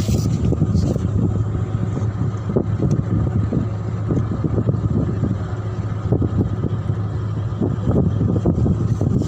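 Tug boat's diesel engine running steadily with a low drone, with wind buffeting the microphone.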